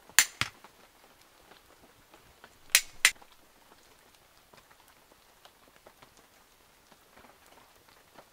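Wood campfire burning with faint scattered crackles, and two loud pairs of sharp pops, one just after the start and one about three seconds in.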